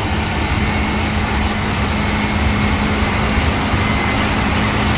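Combine harvester running close by while cutting wheat: a loud, steady engine and threshing drone with a constant low hum and a faint high whine.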